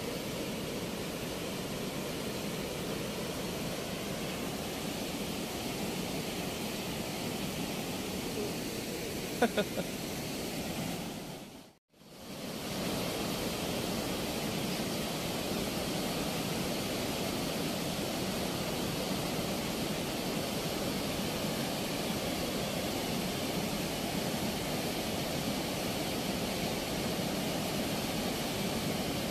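Steady rushing of floodwater pouring through the open sluice gates of a movable weir. A few sharp clicks sound about nine and a half seconds in, and the sound briefly fades out and back in near twelve seconds.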